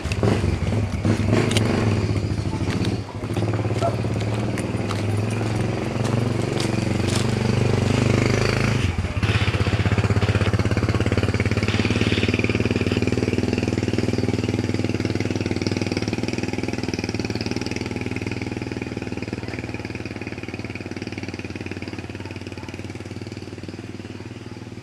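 Motorcycle engine running steadily at a low, even pitch, with scattered light clattering knocks over the first several seconds. Its note shifts about nine seconds in, then it slowly fades away.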